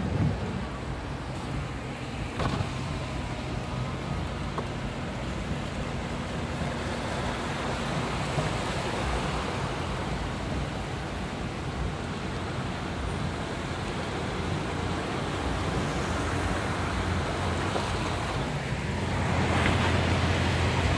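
A car's tyres rolling through shallow floodwater, a steady swish of water and road noise heard from inside the cabin over the low hum of the engine. The water noise grows louder near the end.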